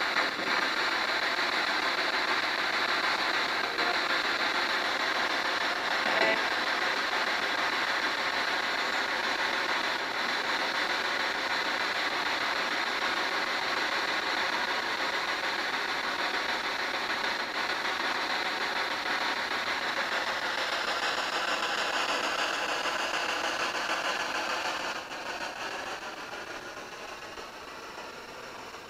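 Steady hiss of radio static from a spirit box sweeping through stations while it waits for an answer. The hiss changes texture about two-thirds of the way through, then fades down over the last few seconds.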